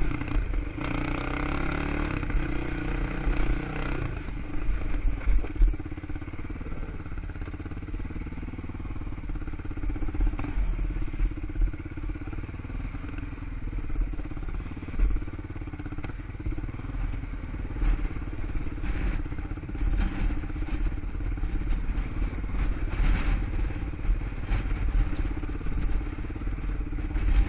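ATV (quad) engine running while being ridden. It is clearest and strongest for the first four seconds, then settles into a lower steady drone with irregular low thumps.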